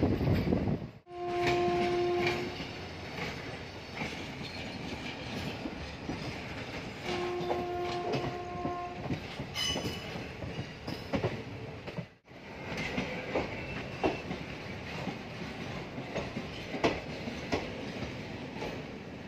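Passenger train heard from an open coach doorway, rolling slowly into a station with its wheels clattering and clicking over rail joints and points. A train horn sounds twice: a short blast about a second in and a longer one around seven seconds in.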